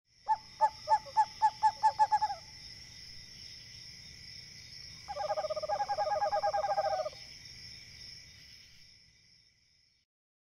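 Night-ambience sound effect for a logo intro: a bird's call of about eight quick evenly spaced notes, then a second, faster run of notes about five seconds in, over a steady high-pitched drone. It all fades out near the end.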